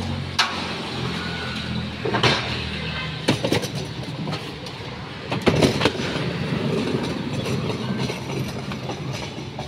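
Knocks and clatter of sound and lighting equipment being handled and unloaded, over a steady low hum. The loudest bangs come about two, three and a half, and five and a half seconds in.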